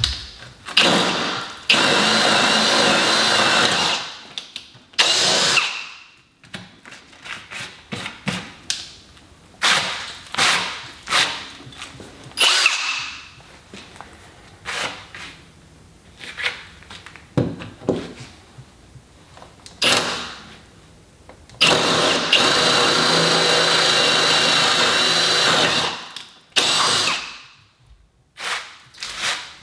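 Electric drill boring through a wooden tabletop with a large 11/16-inch bit. The motor runs steadily for a couple of seconds near the start and for about five seconds past the middle, with many short trigger bursts in between.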